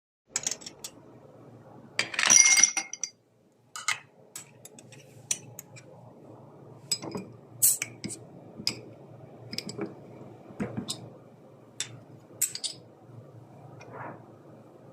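Drinking glass clinking: one loud ringing clink about two seconds in, then scattered light glassy clicks and taps over a faint steady hum.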